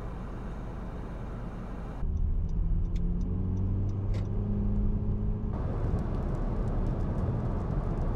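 A steady rush of wind, then the sound inside a moving car: a low engine hum rising a little as the car accelerates, with scattered light ticks of raindrops hitting the windshield. From about five and a half seconds in, louder road and tyre noise with many more raindrop ticks.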